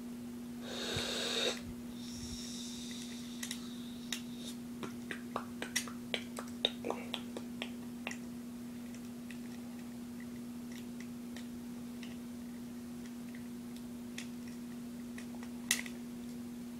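A scatter of small, light clicks and taps from plastic toy figures being handled and trimmed with small scissors, mostly in the first half, with one more near the end. A brief rustle comes about a second in, and a steady low hum runs underneath.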